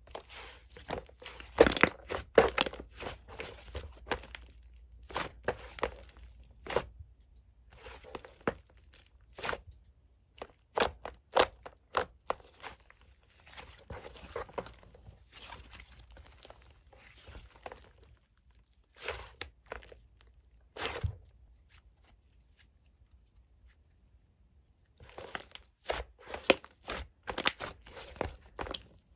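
Hands squishing, stretching and poking clay slime, making sticky clicks, pops and crackly tearing sounds in uneven bursts. A few seconds of quiet fall shortly after the middle before the clicking picks up again.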